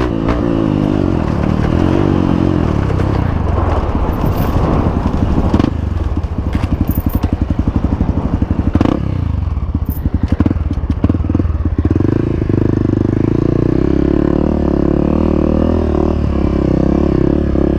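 Honda CRF 250F single-cylinder four-stroke dirt bike engine running through an aftermarket Belparts exhaust while being ridden off-road. The engine rises and falls with the throttle, with a couple of sharp knocks about six and nine seconds in.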